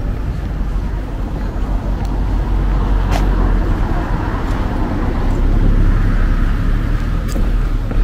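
Steady low outdoor rumble, heaviest in the deep bass, with two brief high chirps about three and seven seconds in.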